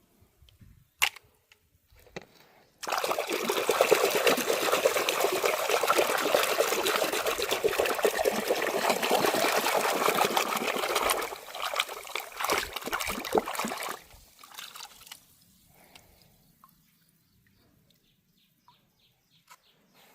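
Water running and splashing: it starts abruptly about three seconds in, runs steadily for about eight seconds, then breaks into separate splashes and dribbles before stopping. A single sharp click comes shortly before the water starts.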